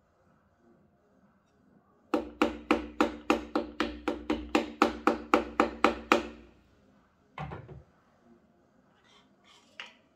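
A quick, even run of about seventeen sharp taps, some four a second for about four seconds, each with a metallic ring: a piston being tapped down into a cylinder bore of a BMW S54 engine. A single thud follows about a second later, then a few light clicks.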